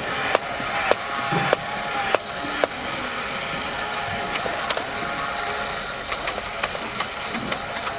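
A 1950s battery-operated bartender toy's motor whirring as its arm shakes a metal cocktail shaker, with a sharp click about every half second at first, then lighter, quicker ticks near the end.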